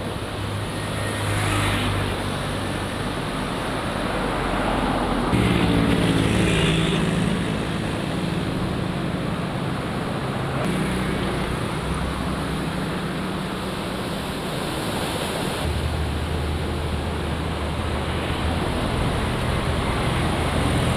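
Steady rushing noise with a low engine-like hum underneath; the hum changes pitch a few times.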